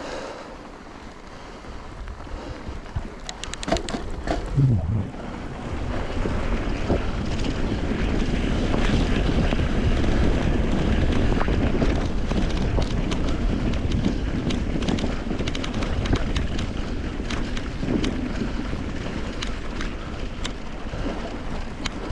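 Mountain bike tires crunching through fresh snow while riding, with wind rushing over the microphone. It grows louder from about six seconds in.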